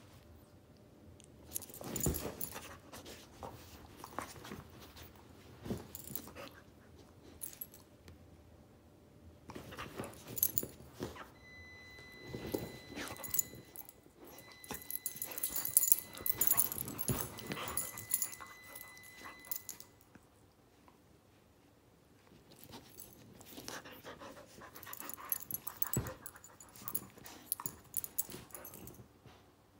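A Shih Tzu puppy and a pit bull play-wrestling on a couch: irregular scuffling and rustling of fur against the cushions and blanket, in uneven bursts, with a short lull about two-thirds of the way through. A thin, steady high tone sounds for several seconds in the middle.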